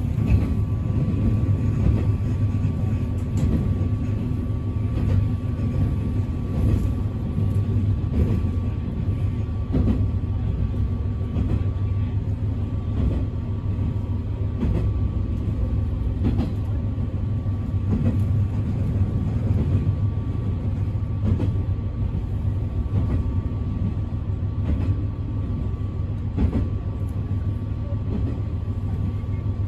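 Running noise heard from inside a Gomen-Nahari Line diesel railcar under way: a steady low rumble with a faint constant whine, and now and then a light knock from the wheels on the track.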